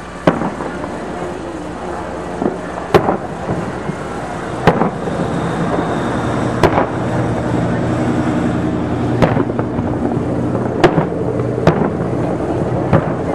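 Aerial fireworks bursting overhead: about eight sharp bangs, one to three seconds apart, over steady background noise.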